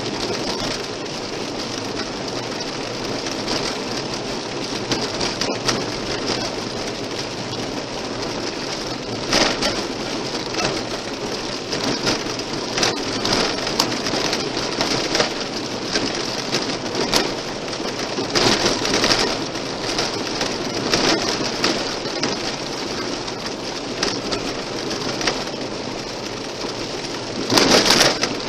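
Car tyres rolling on a gravel road: a steady rushing road noise with frequent sharp ticks of stones striking the car, rising into a louder burst of gravel about a second before the end.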